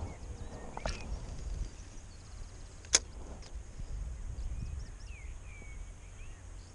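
A fishing rod swished through a cast, then one sharp click about three seconds in, typical of a spinning reel's bail snapping shut. Wind rumbles on the microphone, and a few short bird chirps come near the end.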